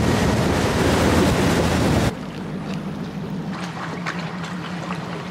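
Bass boat's outboard motor running at speed, with wind and water rushing past. About two seconds in it cuts off abruptly to a much quieter, steady low hum.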